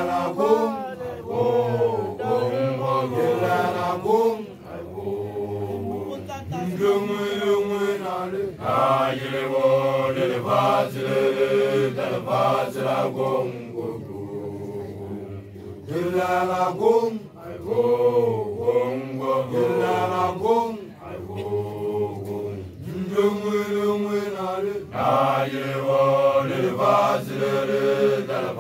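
A group of men's voices chanting a song together in long held phrases: Basotho initiation graduates (makoloane) singing.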